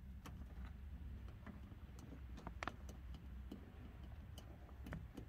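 Faint, scattered small clicks and ticks as the lock cable ends are worked out of their plastic clips inside an Opel Astra G rear door, over a low steady hum.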